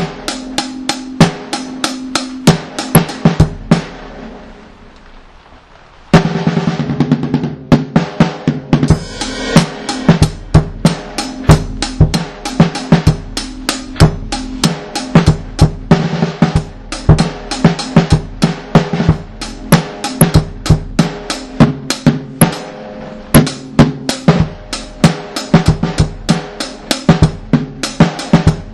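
Reggae one-drop dub track: a drum kit with snare and bass drum keeps a steady beat over a deep bass line. About four seconds in the music thins and fades away, then comes back in full about six seconds in.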